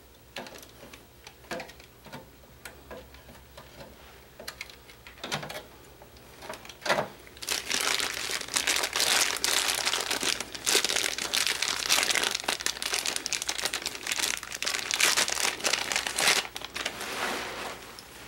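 A few scattered clicks and knocks as a graphics card is lifted out of the computer case. From about seven seconds in comes a long stretch of dense plastic crinkling from packaging being handled, which stops about a second before the end.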